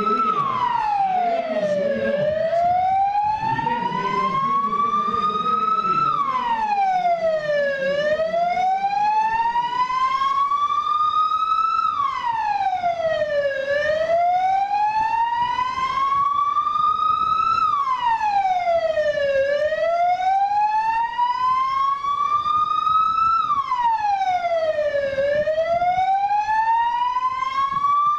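Vehicle siren wailing in a repeating cycle: the pitch climbs slowly for about four seconds, then drops quickly, and this repeats about every six seconds.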